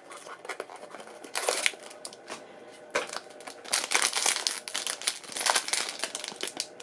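Crinkly foil blind-bag wrapper being handled and squeezed, a dense crackling that comes in bursts and is loudest from about four seconds in.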